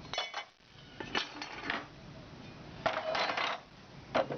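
Metallic clinks and knocks from a galvanized-iron sheet-metal box being handled: a few separate knocks, then a longer ringing rattle about three seconds in.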